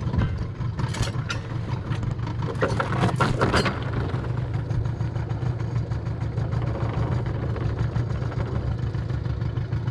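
Sailboat's outboard motor idling with a steady low rumble, with short clattering rattles about a second in and again around three seconds in.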